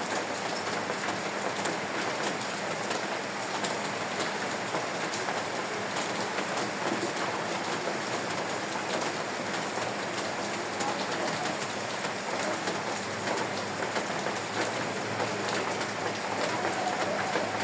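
Steady rain falling on a surface: an even hiss dotted with the ticks of individual drops.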